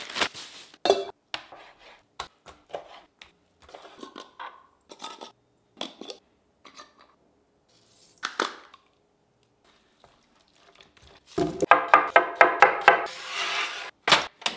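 A quick succession of short kitchen handling sounds: paper being unwrapped, a grinder and dishes over a stainless steel mixing bowl, and utensils clinking. Near the end comes a dense run of rapid, evenly spaced knocks and clatter.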